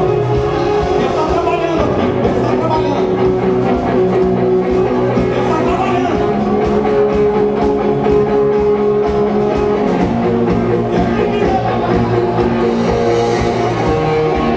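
Loud live band music: long held chords that change every few seconds over a steady drum beat.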